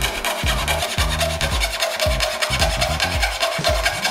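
Hand fret saw with a fine blade cutting thin plywood in quick, even back-and-forth strokes, over background music.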